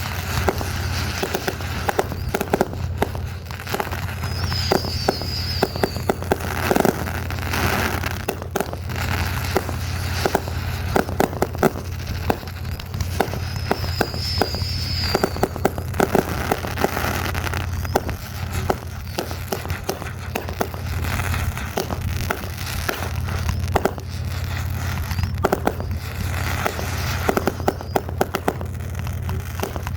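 Fireworks going off continuously in a dense run of rapid crackling pops, with two short high whistles, about four seconds in and again about halfway through.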